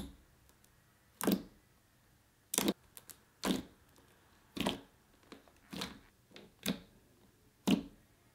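Fingers pressing and poking into soft, stretchy glue slime, making short sharp pops and clicks as trapped air is squeezed out, about once a second.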